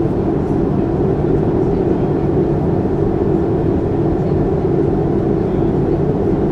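Steady, loud cabin noise of a Boeing 737-300, its CFM56-3 jet engines and airflow giving an even rumble with no rise or fall in pitch.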